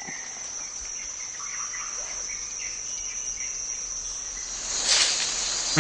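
Insects chirring steadily at a high pitch, with a few faint chirps scattered through. A brief rush of noise swells and fades about five seconds in.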